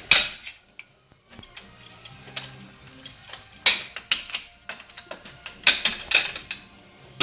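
Metal clicks and clatters from a 700R4 transmission's overdrive clutch pack being taken apart, steel and friction plates knocking against each other and the drum in several separate strikes.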